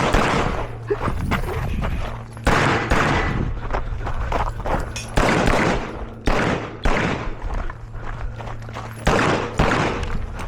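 Rapid pistol shots from a 9mm Canik METE SF on an IDPA stage, fired mostly in quick pairs with a second or two between strings, each shot ringing out briefly.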